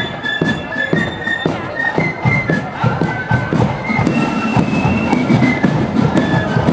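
Marching flute band playing a tune: high flute melody over a steady beat of drums, about two strokes a second.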